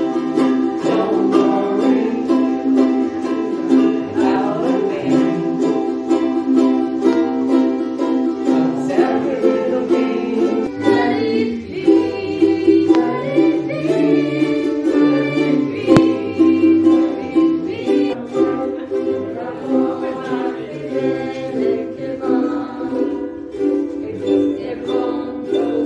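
A group of ukuleles strummed together in a steady rhythm, playing chords in unison.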